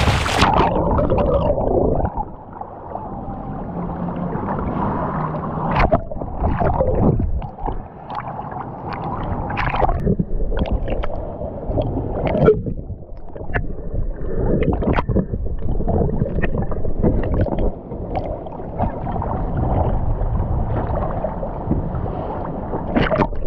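Muffled underwater sound picked up by a camera below the surface while spearfishing: a dull rush of water and gurgling bubbles, with irregular knocks and swells.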